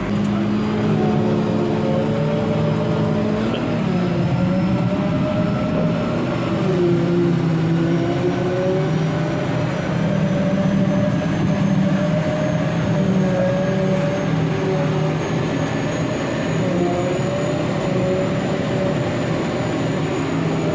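Tractor engine running steadily under load, its note wavering a little as the revs shift, with a faint high whine that slowly climbs in pitch.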